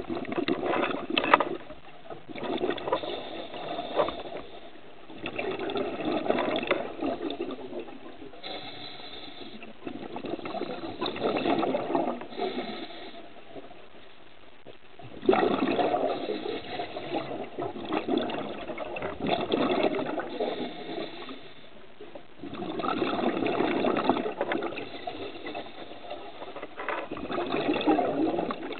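Scuba diver's regulator exhaling underwater: bursts of bubbling lasting a couple of seconds, repeating every few seconds, with quieter pauses between breaths.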